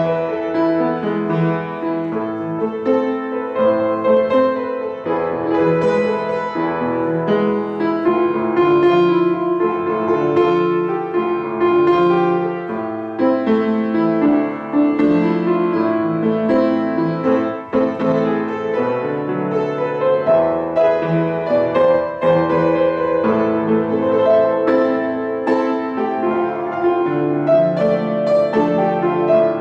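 Piano played with both hands: a single-note melody in the right hand over a steady left-hand accompaniment pattern, notes sounding continuously.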